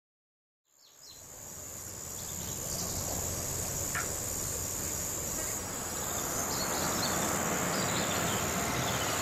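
Cicadas buzzing in a steady, high, unbroken drone over low outdoor ambience, fading in from silence about a second in.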